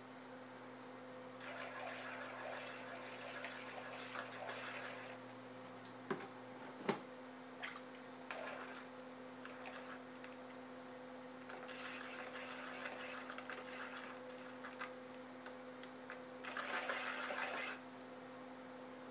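Electric pottery wheel running with a steady motor hum. A tool scrapes against the wet clay at the base of the spinning tumbler in three stretches of a few seconds each, with a couple of sharp clicks in between.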